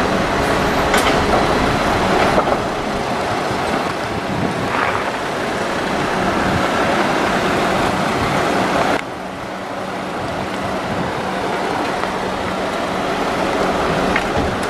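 Diesel engine of a city route bus running steadily as the bus drives off and pulls away, with a steady low hum and a few light clicks. The sound drops suddenly about nine seconds in, then builds again as another bus moves off.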